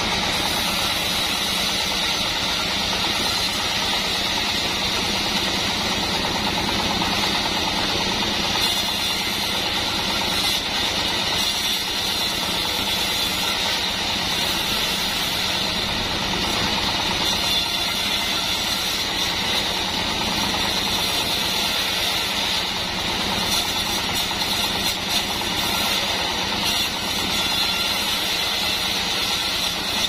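Homemade band sawmill running steadily, its band blade sawing lengthwise through wooden beams. The machine sound holds at an even level throughout.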